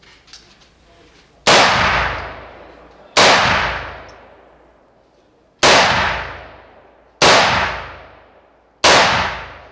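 Five rifle shots fired one at a time, about one and a half to two and a half seconds apart, each followed by a long fading tail.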